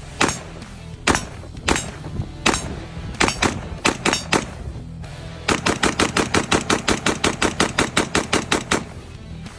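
Adams Arms P2 short-stroke piston AR-15 rifle firing. First comes a run of about eight single shots spaced roughly half a second to a second apart, then a fast string of about twenty shots at around six a second that stops shortly before the end.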